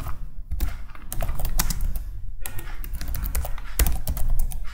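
Typing on a computer keyboard: quick runs of keystroke clicks.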